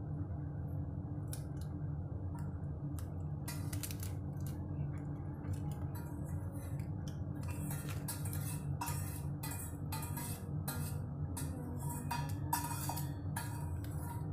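Kitchen scissors snipping roasted bell pepper into strips, a run of short clicks from the blades, sparse at first and then frequent, over a steady low hum.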